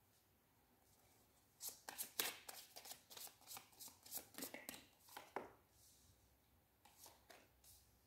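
Tarot cards being handled and dealt onto a cloth-covered table: a quick run of soft card flicks and taps starting about one and a half seconds in and lasting about four seconds, then a few faint ticks near the end.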